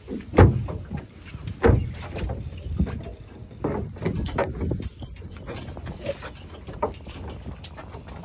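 Knocks and thumps aboard a fishing boat over a low rumble of wind and water, the two loudest thumps about half a second and a second and a half in, then smaller irregular knocks.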